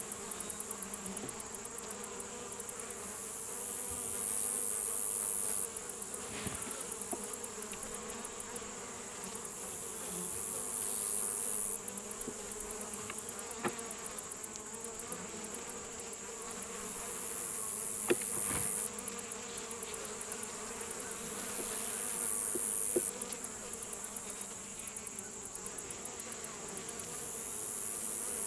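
Honeybees buzzing steadily at an open hive, with a few sharp clicks of a metal hive tool against wooden frames as a frame is pried loose. A high, hissing pulse swells and cuts off every few seconds.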